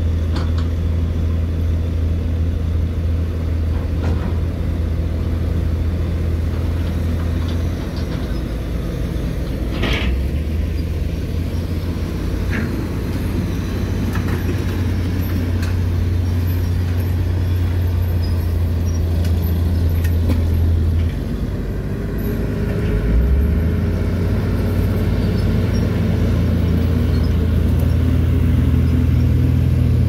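Heavy diesel dump truck engines running steadily as the trucks drive across a dirt site, a continuous deep drone. A couple of short knocks come about ten seconds in. Over the last several seconds the engine note climbs slightly and grows a little louder as a truck pulls away.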